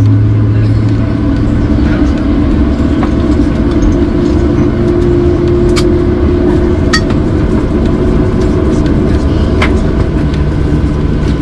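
Steady low rumble and hum of a Boeing 737-800's cabin on the ground, with engine and air-system tones under it and a few sharp clicks about halfway through and near the end.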